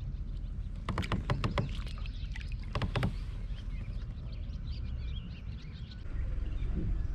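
Water splashing and knocking around a small boat, in two short flurries about a second and three seconds in, over a steady low rumble of wind on the microphone.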